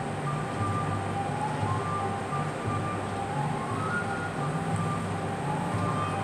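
Orchestral music playing on a classical radio station: held notes shifting in pitch over a low sustained line, beneath a steady background noise.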